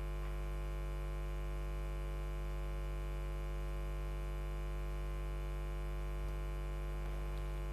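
Steady electrical mains hum, a constant low buzz with many overtones, from the sound system.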